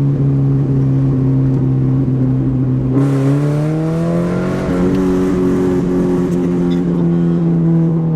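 Subaru BRZ flat-four engine running through a Berk catless front pipe, a loud steady exhaust drone. About three seconds in it climbs in pitch as the car accelerates, then settles on a higher steady note.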